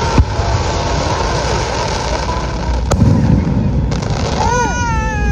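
Fireworks display: a steady low booming rumble of bursting fireworks, with sharp cracks just after the start and about three seconds in. Near the end a pitched, whistle-like tone rises briefly and then falls.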